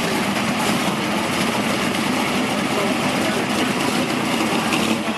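A car engine idling steadily, with a constant background of outdoor noise.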